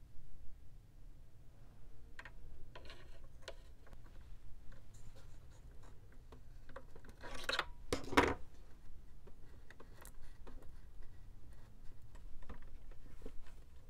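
Small handling sounds of a hemostat and a small nut scraping, clicking and rubbing against a model plane's fuselage as the fuel dot's retaining nut is fitted by hand, with two louder scrapes about seven and eight seconds in.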